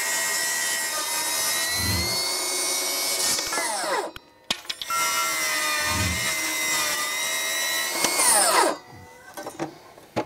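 Milwaukee M18 cordless table saw ripping a 2x6 lengthwise. The blade runs with a steady whine, spins down about four seconds in, starts again about a second later for another cut, and spins down again near the end.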